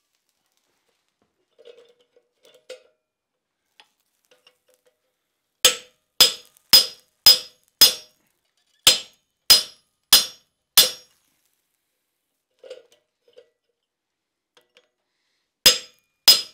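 Hand hammer striking a slitting chisel into a glowing hot iron bar that rests on a swage on the anvil. Sharp metallic strikes about two a second: five blows starting about five seconds in, a short pause, four more, then two more near the end.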